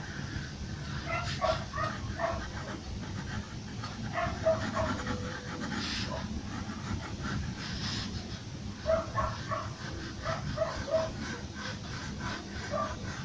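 A dog making short, repeated pitched sounds in three or four clusters, over a steady low background rumble.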